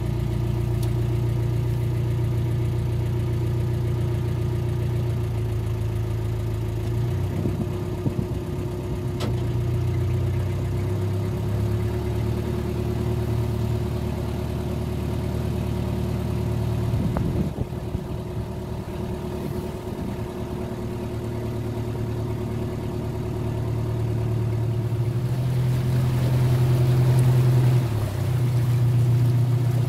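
Narrowboat's diesel engine running at low canal speed, a steady low throb whose note shifts a few times as the throttle is eased and opened, growing louder near the end.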